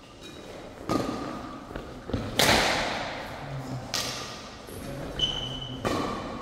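Badminton rackets striking a shuttlecock in a doubles rally: four sharp hits about a second and a half apart, the second the loudest, each echoing in the sports hall. A short high squeak, like a shoe on the court floor, comes shortly before the last hit.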